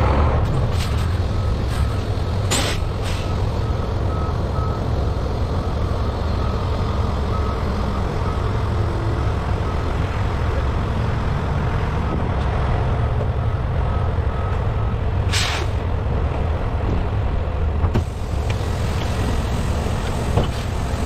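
Heavy diesel truck engine running steadily, with a reversing alarm beeping in an even repeated pattern until about 15 seconds in. Two short sharp air-brake hisses come about 3 and 15 seconds in.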